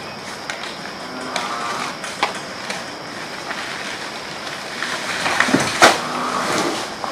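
Outdoor night ambience: a steady hiss with a steady high tone, broken by a few short sharp rustles or knocks, the loudest nearly six seconds in.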